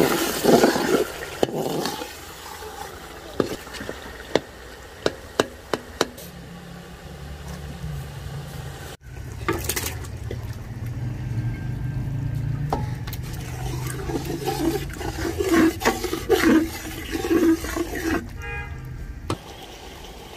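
Chicken biryani masala cooking in a pot: a metal ladle clinks and knocks against the pot several times in the first few seconds. Later comes stirring and scraping with bubbling and sizzling over a steady low rumble.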